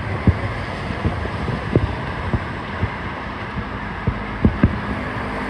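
Irregular low booms of fireworks bursting in the distance, about half a dozen dull thuds over a steady rush of wind and background noise.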